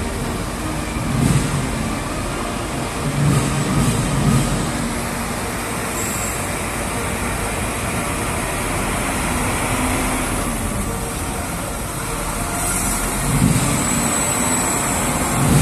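Heavy military vehicles driving past, a steady rumble of engines and tyres that swells louder a few times.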